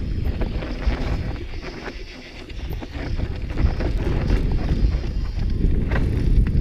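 Wind buffeting a helmet-mounted GoPro's microphone while a Trek Remedy 9 full-suspension mountain bike rolls down sandstone slickrock, with tyre rumble and the bike rattling over bumps. It eases off about two seconds in, then picks up again.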